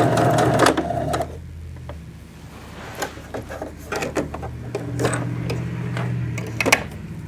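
Sewing machine stitching fast at the end of a seam, stopping about a second in; after that a low hum with scattered clicks and knocks of the machine and fabric being handled.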